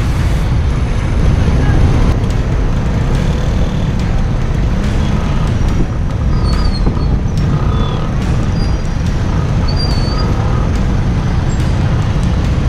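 Congested street traffic: motorcycle and tricycle engines running close by, under a heavy steady low rumble. A few short high chirps come through in the middle.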